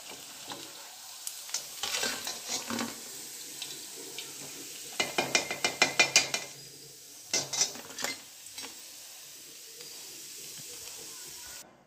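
Sabudana vadas sizzling steadily in hot oil in a steel kadhai, with clusters of metal clinks and scrapes as a perforated steel slotted spoon lifts the golden, crisp vadas out and knocks against the pan and a steel plate. The densest run of clinks comes midway.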